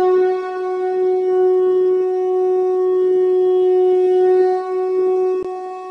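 One long, steady note at a fixed pitch with many overtones, from an app-made soundtrack. A short click comes about five and a half seconds in.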